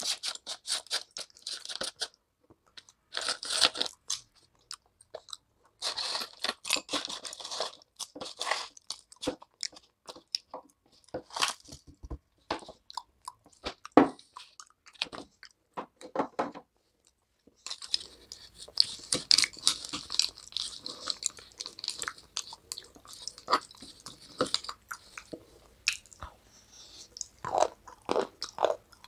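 Close-miked crunching and chewing of a brittle, dry food in irregular bursts, with a brief pause about two-thirds of the way through before a dense run of crunches.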